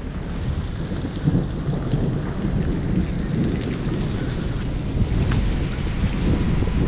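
Steady rain falling, with a continuous low rumble of thunder from the storm.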